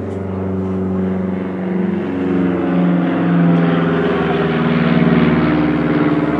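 Loud, sustained engine drone with a slowly shifting pitch that swells to a peak about five seconds in and then eases off.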